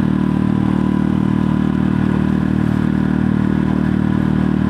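Parsun F5 BMS outboard motor, a 5 hp single-cylinder four-stroke, running steadily at full throttle under load.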